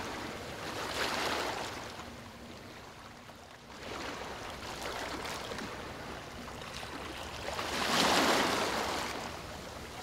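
Surf breaking on a beach: waves swelling and washing back in slow surges, the loudest one about eight seconds in.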